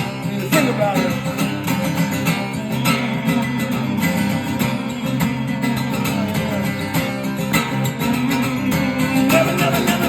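Acoustic guitar strummed in a steady rhythm, an instrumental passage after the last sung line of a song.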